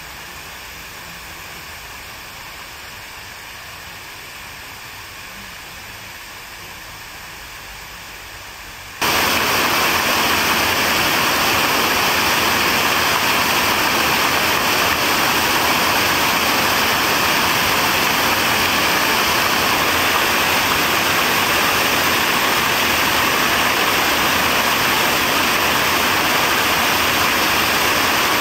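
Steady rush of falling water that jumps abruptly much louder about nine seconds in.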